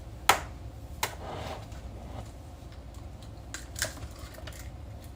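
An egg knocked sharply twice against the edge of a bowl, then cracked open into it, with a few lighter clicks later on.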